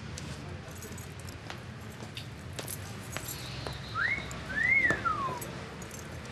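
Two-note wolf whistle: a short rising note, then a longer note that rises and falls. It sounds over a steady background hiss with a few faint clicks.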